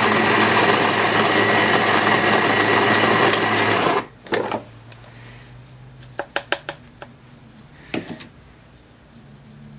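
Baratza Vario burr coffee grinder running, its motor driving newly fitted steel burrs through coffee beans at the coarsest grind setting: a steady grinding sound that stops after about four seconds. A few sharp clicks follow.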